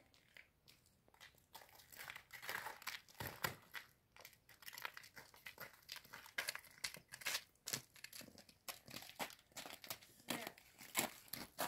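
Several people's footsteps crunching on frozen ground and patches of snow: a quiet, irregular run of crunches.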